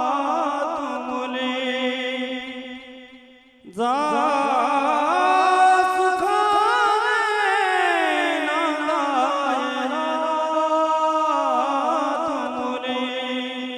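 A singer holds long, drawn-out melodic phrases with wavering vibrato and ornaments over a steady drone note, in the style of a Marathi mangalashtak. The first phrase fades out about three and a half seconds in. A second, longer phrase starts straight away, rises and falls, and fades near the end.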